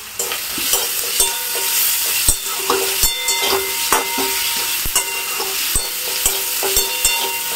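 Chopped garlic, green chilli and crushed ginger sizzling in hot oil with frying onions, the sizzle getting louder just after the start as they go in. A spatula stirs and knocks against the pan about twice a second, the pan ringing with each knock.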